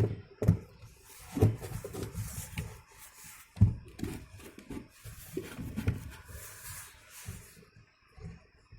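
Irregular knocks, clatter and rubbing of objects being handled, with a few sharper knocks about half a second and three and a half seconds in.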